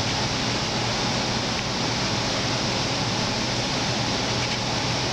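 Steady, even hiss of background noise with a low hum underneath, unchanging throughout.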